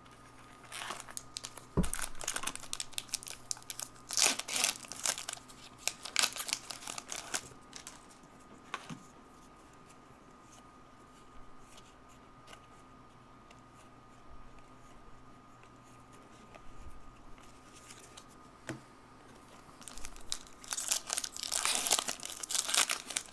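Foil trading-card pack wrappers crinkling and rustling as hockey card packs are handled, with quieter clicks of cards being shuffled in the middle. Near the end a dense burst of crinkling as a foil pack is torn open.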